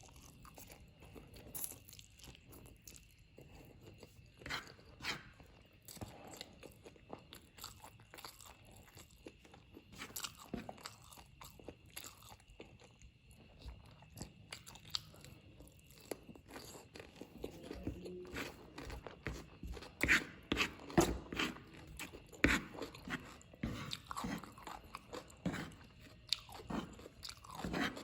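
Close-miked chewing and wet mouth sounds of someone eating fried noodles, irregular smacks and clicks that come faster and louder in the second half.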